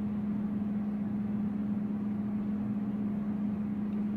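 A steady low hum holding one constant tone, unchanged throughout, with no distinct events.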